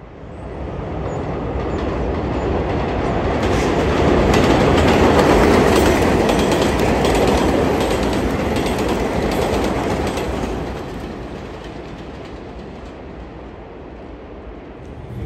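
Vintage R33/R36 "Redbird" New York subway train passing on an elevated track, its wheels clattering over the rail joints. The sound builds to a peak about five seconds in and fades away over the last few seconds.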